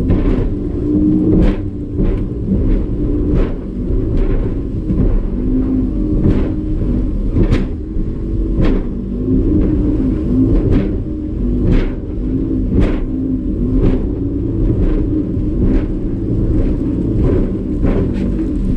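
Evinrude E-Tec 150 two-stroke V6 outboard running steadily at racing speed with a low rumble. Sharp knocks come about once a second.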